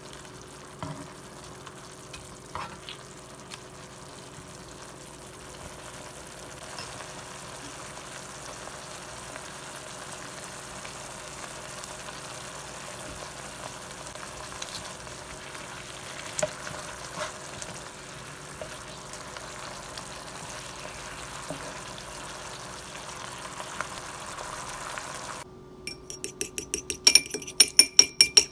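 Mackerel in tomato sauce simmering in a pan with a steady sizzle, and a few light clicks of a utensil against the pan. About 25 seconds in, eggs are beaten in a bowl: quick, evenly spaced clinks of the utensil against the bowl, several a second and louder than the simmering.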